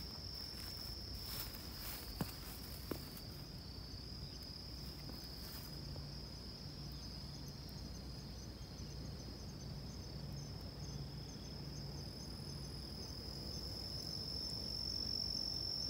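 Steady high-pitched insect buzzing, the drone of a summer insect chorus in the forest, with faint rapid ticking over it from about the middle on.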